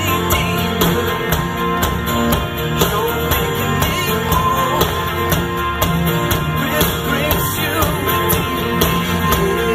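Live Christian rock band playing over the stage sound system, with electric guitar and a steady drum beat.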